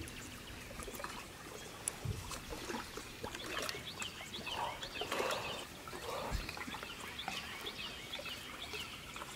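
Birds chirping and singing in the trees along the shore, many short calls over a faint background hush, with a sharp knock at the very start and a couple of soft thumps.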